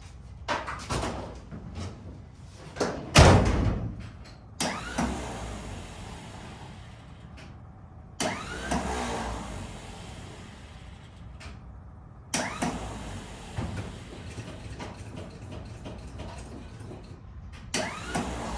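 Scattered clunks, knocks and rattles of handling, with one heavy thud about three seconds in.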